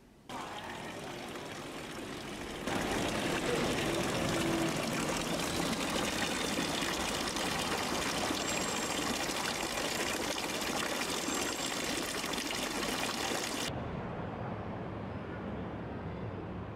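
Thin water jets from a stone wall fountain splashing steadily into its basin, stepping up louder about three seconds in. Near the end the splashing gives way to a fainter, lower rumble.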